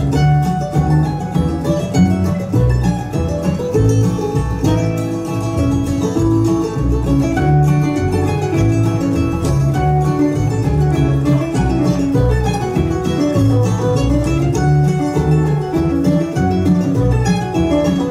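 Live band music led by plucked string instruments in a banjo and guitar style, with many quick notes over a steady pulsing bass.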